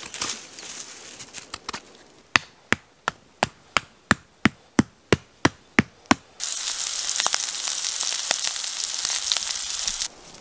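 A tarp stake being hammered into the ground: about a dozen sharp, evenly spaced knocks, about three a second. About six seconds in they stop and meat sizzles steadily in a hot pan until near the end.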